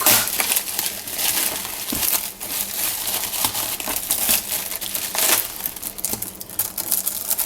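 Shipping packaging being opened and handled, with continuous crinkling and rustling broken by many quick crackles.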